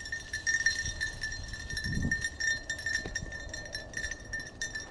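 Footsteps and dry brush crackling and rustling as someone pushes through briars and dead weeds, with a heavier step about two seconds in. A faint steady high tone runs underneath.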